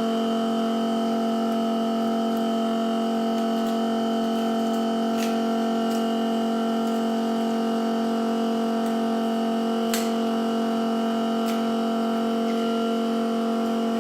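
Frame separator machine running with a steady, even electric hum, with a few faint clicks.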